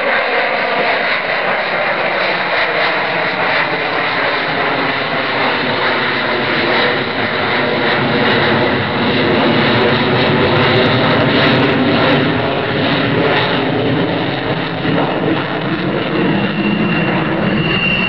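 Avro Vulcan's four Olympus turbojets running loud in flight overhead: a steady jet roar with several tones that slowly shift in pitch through it.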